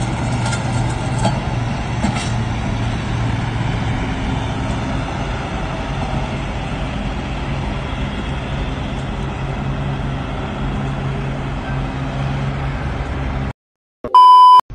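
A semi-truck's diesel engine running steadily with a low hum as the truck rolls on a bare front wheel rim with no tire. Near the end the sound cuts out and a short steady test-tone beep plays.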